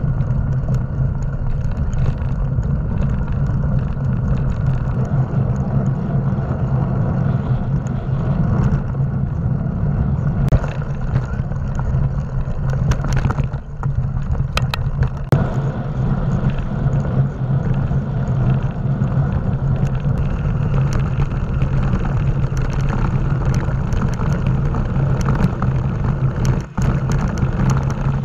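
Riding noise of a mountain bike: wind rushing over the microphone and tyres rolling on gravel and dirt trail, with scattered rattles and clicks from bumps.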